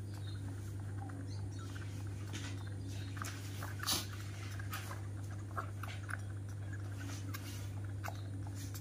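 Baby monkey sucking milk from a bottle, with soft, irregular smacking clicks and one louder smack about four seconds in, over a steady low hum.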